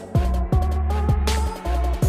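Electronic background music with a steady kick-drum beat, deep bass and a synth melody.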